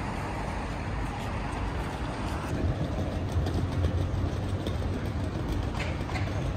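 Steady low rumble of outdoor background noise, with a few faint clicks near the end.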